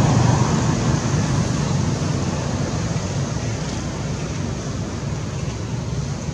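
Steady low rumbling noise with a hiss above it, easing slightly over the seconds.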